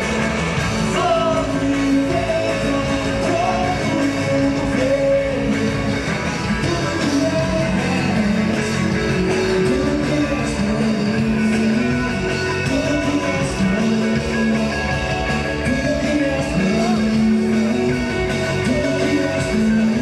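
Live rock band music: electric guitars playing with a voice singing over them.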